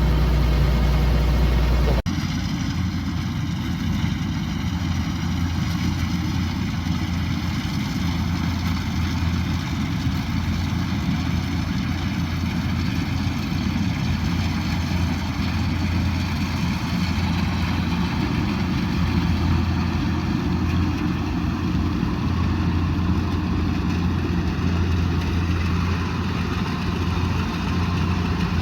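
Kubota DC108X combine harvester's diesel engine running steadily with its machinery, a deep continuous hum. The sound shifts abruptly about two seconds in, then stays steady.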